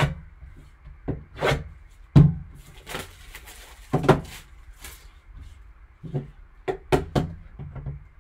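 Gloved hands handling a shrink-wrapped trading card box on a table: a series of knocks and taps, the loudest about two and four seconds in, with a short plastic rustle about three seconds in.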